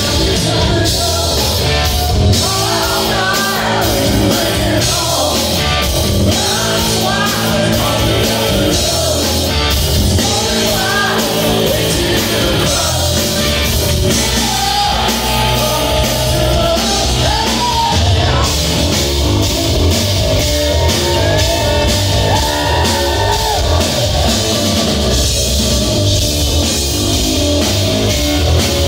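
Rock band playing live and loud, with electric guitar, electric bass and drum kit, and singing over the top.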